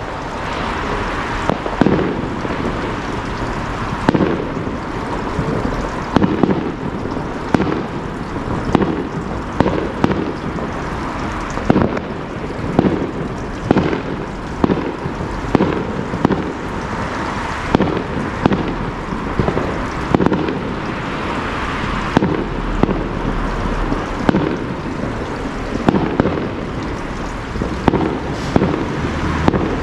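Fireworks display going off: a string of sharp bangs, about one every second or two, over a steady rushing background.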